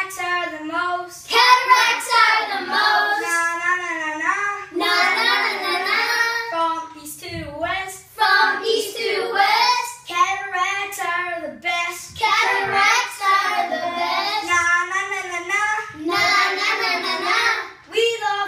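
A group of boys singing a song together in unison, without accompaniment, in phrases of a few seconds with brief breaks for breath.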